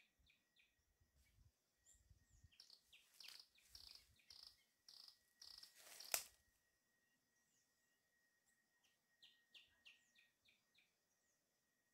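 Faint bird calls: runs of short, quickly repeated high chirps, one run in the first half and another near the end, over a thin steady high tone. A single sharp click about six seconds in is the loudest sound.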